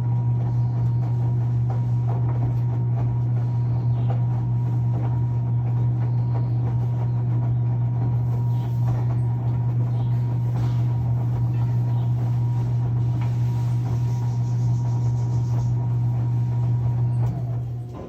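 Washing machine running with a steady low hum and a fainter high tone over it, dipping briefly near the end before picking up again.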